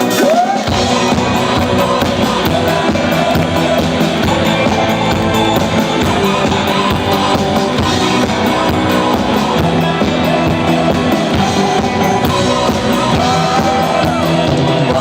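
Rock music with electric guitar, the band coming in fully about half a second in and then playing steadily.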